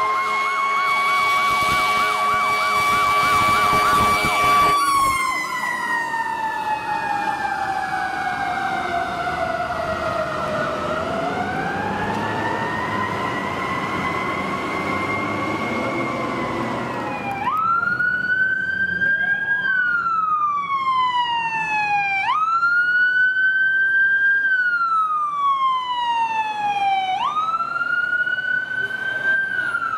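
Fire truck sirens. One holds a steady high note, then slides slowly down and back up. From about halfway a siren wails in repeated cycles, each a quick climb and a slower fall, about every five seconds.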